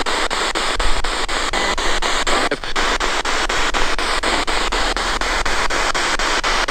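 Spirit box sweeping through radio stations: steady radio static chopped by regular clicks, about five a second.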